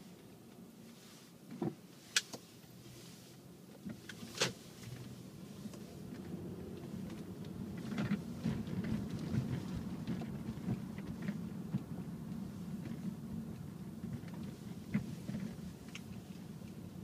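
Car cabin noise from a slow drive: a steady engine and road rumble that grows louder about six seconds in, with a few sharp clicks and knocks, the loudest about two and four seconds in.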